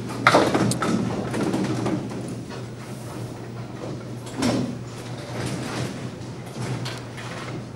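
Candlepin bowling alley sounds: a sharp knock followed by clatter just after the start, another knock about four and a half seconds in, over a steady low hum and the rumble of lanes and machinery.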